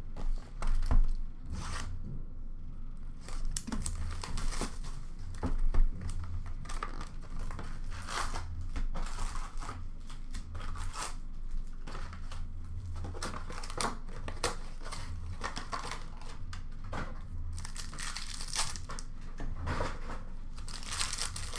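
An Upper Deck Series Two hockey card box being opened and handled, with two knocks as it is set down in the first six seconds. Foil card packs crinkle as they are pulled out, and a denser stretch of tearing and crinkling near the end is a foil pack being torn open.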